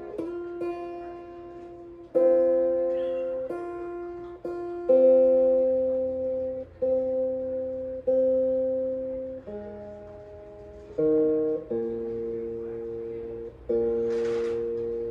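Acoustic guitar being tuned between songs: the same chord or open strings struck every second or so and left to ring out while a tuning peg is adjusted.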